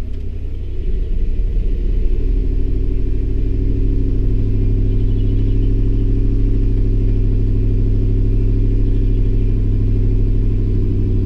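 Ford 5.4-litre three-valve Triton V8 running in gear under a light brake torque: it gets louder over the first couple of seconds, then holds steady. The engine is running poorly and misfiring down one bank, which the mechanic puts down to a plugged catalytic converter.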